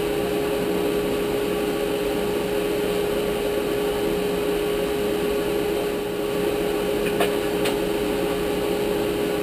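Steady motor hum with a constant mid-pitched tone from a shop machine left running, with two light clicks about seven seconds in.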